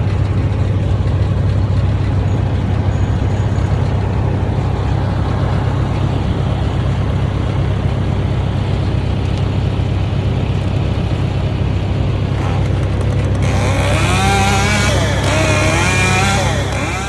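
An engine running steadily at a constant speed, with a person's voice over it for the last few seconds.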